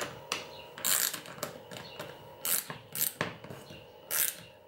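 Small hand ratchet driver clicking in short rasping strokes with pauses between, as it tightens the screw that clamps the sanding belt into a 3D-printed sanding bow.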